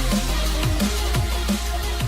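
Electronic dance music with a steady beat and deep, heavy bass.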